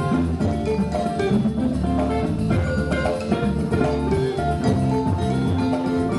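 Live band music: an electric guitar playing a lead line of quick, short notes over a drum kit and the rest of the band, a Balinese regional tune played as ethnic fusion.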